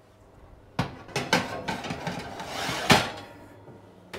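Oven being loaded and shut: a few clattering knocks about a second in, then a rising rush that ends in a sharp thud near three seconds as the oven door closes.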